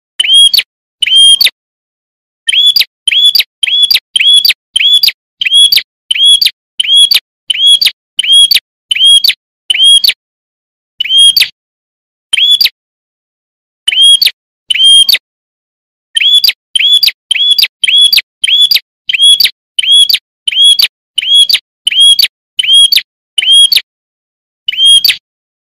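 Prinia (prenjak) calling: short, sharp, identical chirping notes repeated about one and a half times a second in runs, with brief pauses between the runs.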